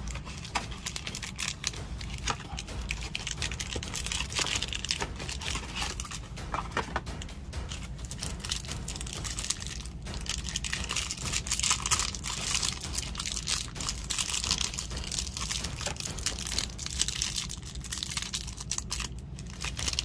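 Clear plastic wrapper around a stack of trading cards crinkling and tearing as hands peel it open, with dense, irregular crackling.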